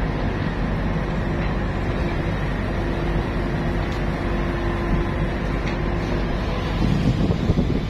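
Steady drone of ship's engine machinery running, with a faint steady hum through the middle and a brief louder rumble near the end.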